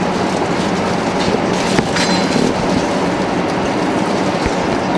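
Steady cabin noise of an Airbus A380 in flight: the even rush of airflow and engines heard from an economy seat, with one short click about two seconds in.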